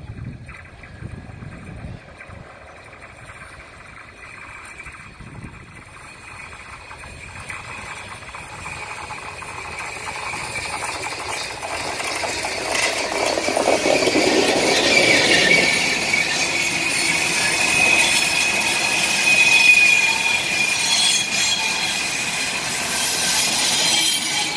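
German class 50 steam locomotive 50 2273 hauling a train of passenger coaches, approaching and passing close by, getting steadily louder over the first half. The coaches' wheels run over the rails, with a steady high wheel squeal on the curve in the second half.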